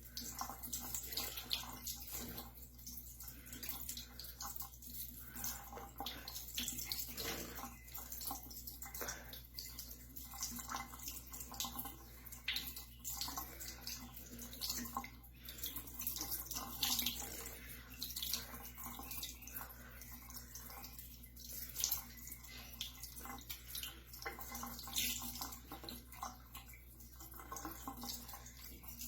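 Water splashing and dripping in a cupped hand as a budgie bathes in it, in small uneven splashes, with a steady low hum underneath.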